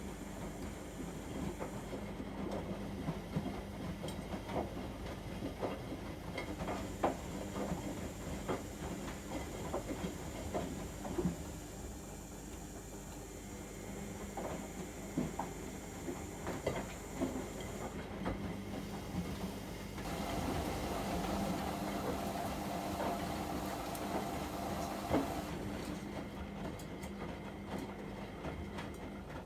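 AEG Öko-Lavamat 73749 Exclusiv front-loading washing machine running a 95°C boil wash, drum turning. There is a steady motor hum and irregular knocks and clicks from the tumbling load. About two-thirds through, the motor note changes for about five seconds.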